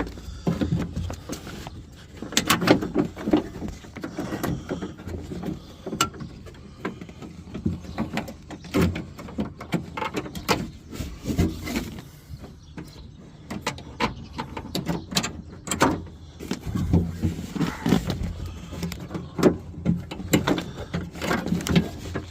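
Hand working inside a pickup truck's door shell on the latch assembly: irregular clicks, knocks and rattles of the latch, its linkage and the sheet-metal door panel, with some duller thumps.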